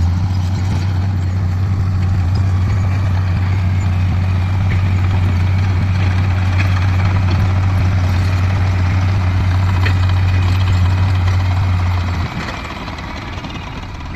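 Heavy construction machine's diesel engine running at a steady speed with a constant low drone. The drone drops away about twelve seconds in, leaving a quieter engine rumble.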